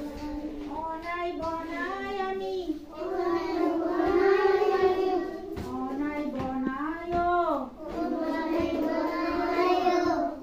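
Young children singing an Assamese Jyoti Sangeet together, in phrases with short breaths between them.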